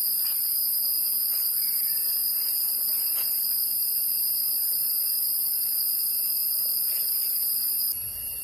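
Steady, loud, high-pitched drone of tropical forest insects such as cicadas, a shrill buzzing whine that holds without a break. A few faint clicks sound under it, and the drone drops a little near the end.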